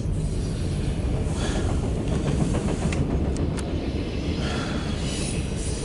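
Loaded autorack freight cars rolling past on the rails: a steady low rumble of wheels on track, with a couple of sharp clicks about three seconds in.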